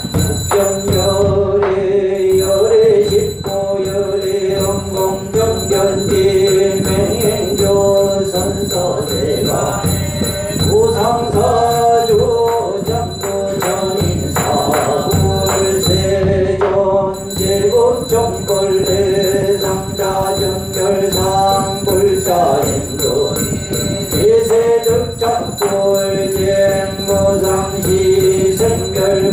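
Korean Buddhist yeombul chanting: a monk and the congregation sing a repeated melodic invocation, the voices running on without pause.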